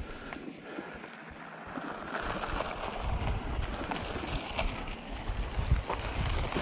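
Mountain bike riding along a dry dirt trail: wind rumbling on the camera's microphone over tyre noise and small rattles from the bike, with a sharper knock near the end.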